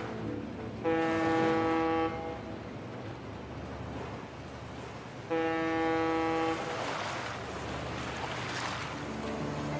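Ship's horn sounding twice, each blast steady and about a second long, a few seconds apart. Water washes in more loudly after the second blast.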